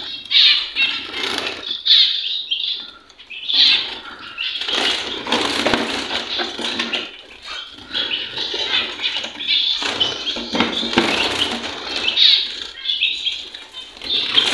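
Cage birds beating their wings in repeated, irregular flurries inside a wire-mesh aviary cage as a hand reaches in to put food in.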